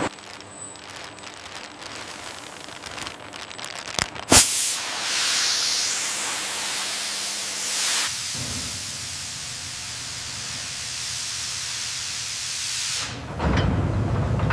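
Factory machinery sounds: a faint steady machine hum, a sharp bang about four seconds in, then a long loud hiss that softens about halfway through, and a deep rumble starting near the end.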